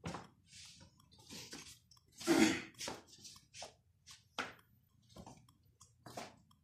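Irregular rustling and light knocks of a person moving about and handling things in a small room, with one louder rustle about two seconds in.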